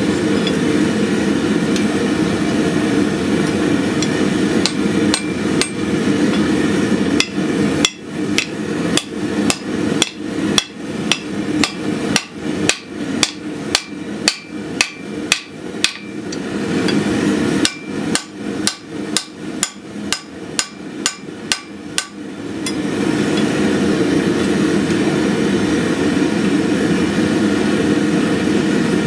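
Hand hammer striking a red-hot steel habaki on an anvil during forging: a run of sharp ringing blows about two a second through the middle, with a brief pause. Before and after the run, a steady rushing noise sits under a few lighter taps.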